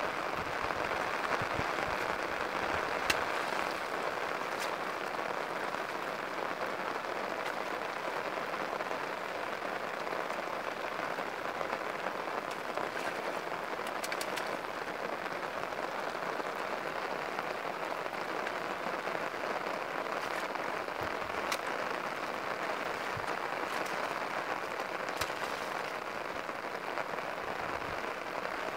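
Steady rain falling on shallow floodwater and grass, with a few brief sharp clicks and splashes scattered through it.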